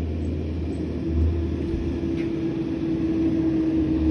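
Garbage truck engine running nearby: a steady low rumble, with a steady hum that comes in about a second in.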